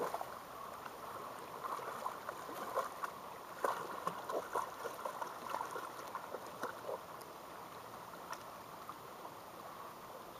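Shallow river running steadily, with scattered small splashes from dogs wading through the water, most of them in the first several seconds.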